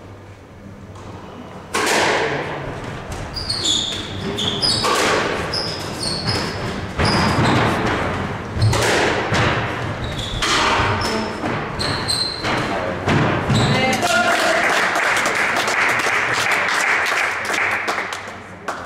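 Doubles squash rally: a run of sharp cracks as the ball is struck by the rackets and hits the court walls, with sneakers squeaking on the wooden floor. From about 14 s in there are a few seconds of denser, steadier crowd noise.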